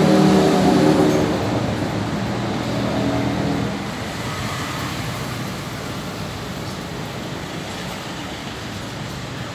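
A motor vehicle engine running with a steady hum, which fades about four seconds in and leaves a steady background noise like traffic.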